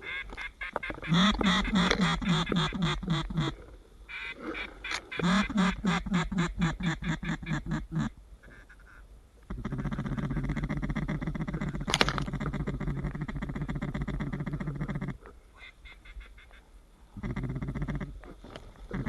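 Duck quacking in fast runs of quacks, then a long, steady, raspy buzz of calling.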